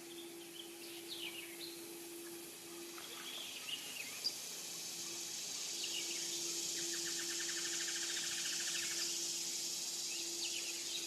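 Swamp ambience: scattered short bird chirps over a steady high insect drone that grows louder through the middle, with a fast pulsed trill lasting about two seconds past the midpoint and a faint steady low hum underneath.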